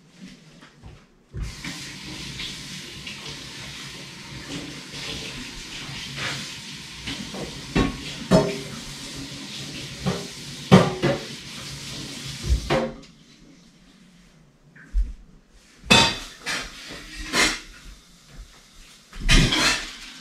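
Kitchen sounds: a tap runs steadily for about ten seconds with dishes clinking, then cuts off suddenly, followed by scattered clatters and knocks of dishes and pots.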